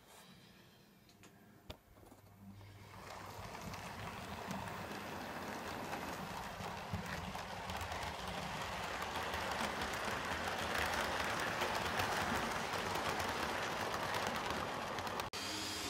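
Model train of a diesel locomotive and coaches running past close by, its wheels clicking and rattling over the track. The rattle grows louder over the first several seconds.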